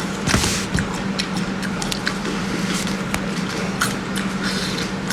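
Steady low motor hum, with scattered sharp clicks and short crackles over it and a brief louder rustling burst about half a second in.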